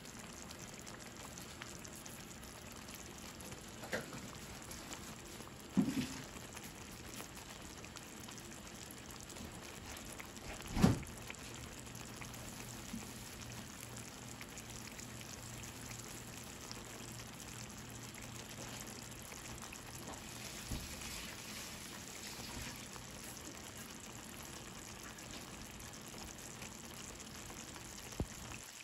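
Tomato salsa simmering in a frying pan, a steady soft bubbling with a few louder pops, the loudest about eleven seconds in.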